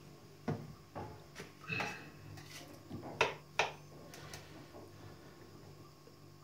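Light knocks and clatters of things being handled on a kitchen countertop, half a dozen in the first four seconds, with two sharp clicks about three seconds in, over a faint steady hum.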